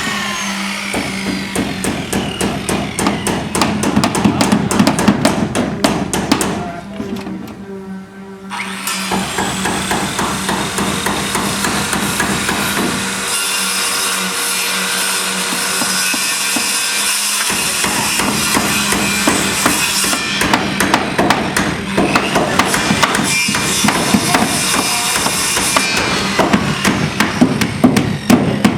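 Hammers driving nails, many strikes in quick succession, with a brief lull about seven seconds in.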